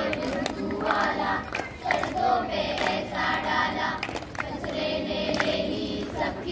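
A group of children singing together in chorus, with a few sharp claps.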